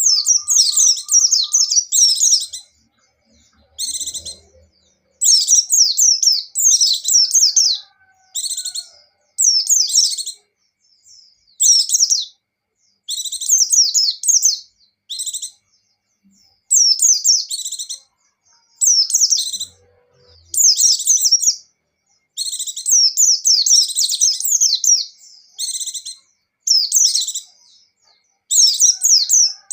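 Pleci (white-eye) singing: repeated bursts of rapid, very high twittering warbles, each a second or two long, with short pauses between.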